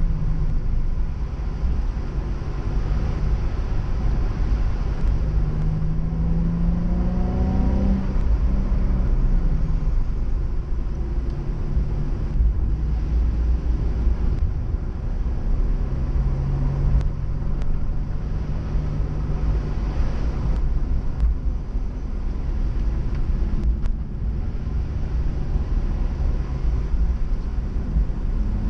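Nissan 350Z's V6 engine being driven hard, its pitch climbing under acceleration and then dropping, twice, over a steady low rumble.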